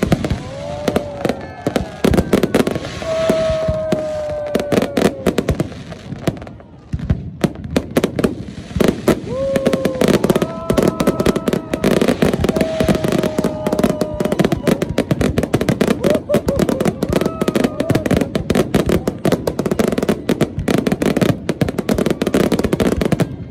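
Large fireworks display: many shells bursting overhead in rapid, dense bangs and crackling, with a brief lull about seven seconds in. Several drawn-out high tones, sliding slightly downward, sound over the bangs.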